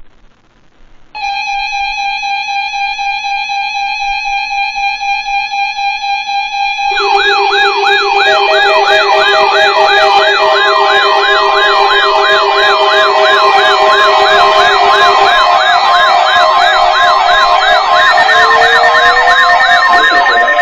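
Loud electronic alarm and siren tones. A steady alarm tone with overtones starts about a second in. About seven seconds in, fast-wavering siren wails join it, rising and falling roughly two to three times a second, over several steady tones. A slow rising wail comes in near the end.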